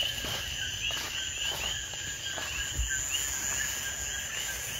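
Night chorus of coquí frogs: many short rising chirps overlapping, several a second, over a steady high insect hum.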